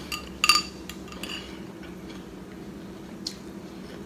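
A spoon clinking against a bowl a few times with short ringing tones, loudest about half a second in, with lighter clinks after about a second and after about three seconds.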